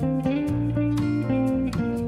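Background music: a guitar playing a line of plucked notes, each starting sharply and ringing on.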